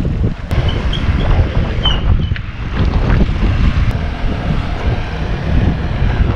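Wind buffeting the microphone of a camera riding along on a moving bicycle, a heavy low rumble throughout, with a few short high chirps in the first two seconds.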